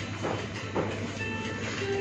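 Supermarket background noise: background music over a steady low hum, with the rolling rattle of a wire shopping cart and a few light knocks.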